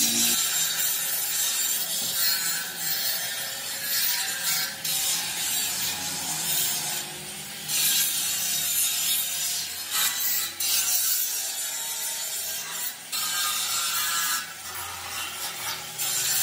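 Handheld angle grinder grinding a welded steel frame: a harsh, high hissing grind that eases off and comes back several times.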